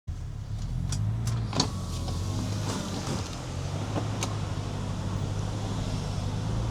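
Steady low rumble of a car heard from inside the cabin, with a few sharp clicks in the first two seconds and another about four seconds in.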